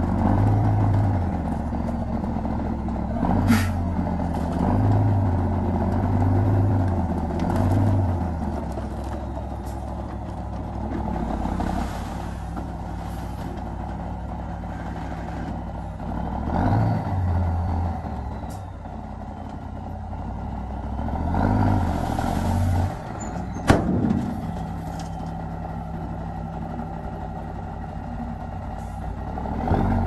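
Heavy-equipment diesel engine running steadily and rising under load again and again, with a sharp metallic clank twice, about three seconds in and near the end, and a few brief hisses.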